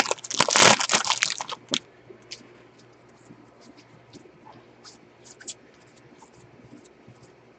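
Wrapper of a 2020 Bowman baseball card pack crinkling as it is torn open, loud for about the first second and a half. Then faint scattered clicks as the cards are slid out and shuffled.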